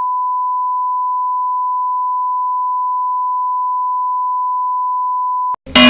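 A steady 1 kHz sine test tone accompanying colour bars, a single unchanging pitch that cuts off about five and a half seconds in. A brief, very loud burst of sound follows right at the end.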